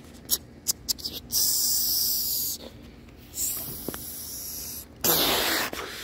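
A few sharp clicks, then three bursts of hissing, the last and loudest about five seconds in.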